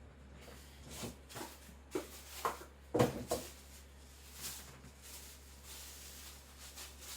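Scattered knocks, clunks and clicks of objects being picked up, moved and set down while someone rummages for a sharpening strop, the loudest about three seconds in, over a faint steady low hum.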